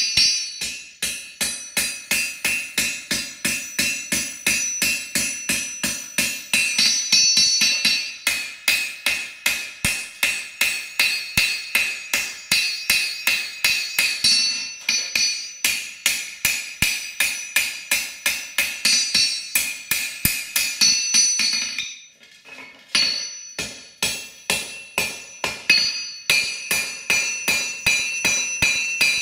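Hand hammer forging a red-hot knife blade on a steel anvil: a steady rhythm of about three blows a second, each blow leaving the anvil ringing. The hammering pauses briefly about three-quarters of the way through, then resumes.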